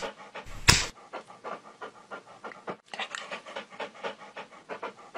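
A German Shepherd panting quickly in an even rhythm of several breaths a second. Two sharp knocks sound in the first second.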